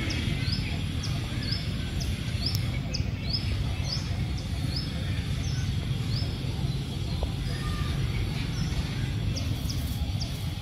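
A small bird chirping over and over in short rising chirps, about two a second at first and fewer later, over a steady low outdoor rumble.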